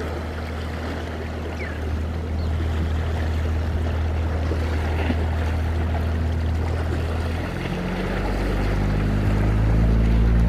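Choppy harbour water slapping and washing against rocks at the foot of a jetty wall. Under it runs a steady low hum that grows louder and shifts in pitch about three-quarters of the way through.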